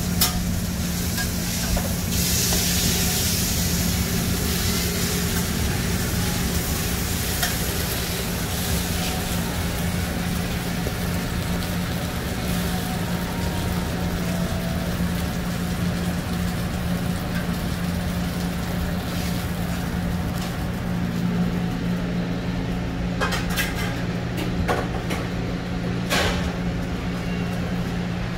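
Busy fast-food kitchen: burger patties sizzling on a flat-top griddle over a steady low hum of kitchen equipment. The hiss thins in the last few seconds, and there are a few sharp clicks near the end.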